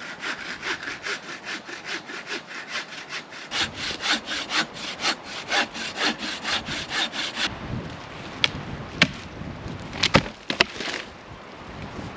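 Hand saw cutting through wood in quick, even strokes, about four a second, stopping after about seven seconds; a few sharp cracks follow.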